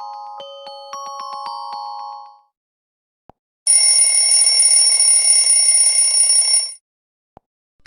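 Phone ringtones: the last notes of a glockenspiel-like melody fade out, then about a second later a loud ringtone in the style of an old telephone bell rings steadily for about three seconds and stops abruptly.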